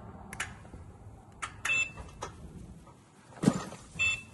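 Rubicon joystick controller's buttons clicking as it is switched on, with two short high beeps at one pitch, about a second and a half in and near the end, showing that the button beep is switched on. A louder dull thump comes about three and a half seconds in.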